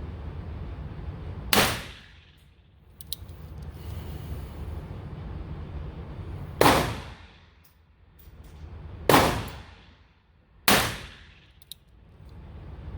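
Four .22 Long Rifle shots fired one at a time at irregular intervals, each ringing briefly off the range walls as it dies away. A steady low hum runs underneath, with a couple of faint small clicks between the shots.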